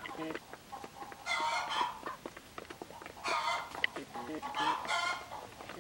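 Chickens feeding: low, repeated clucks with three louder, higher calls, over sharp ticks of beaks pecking grain off concrete.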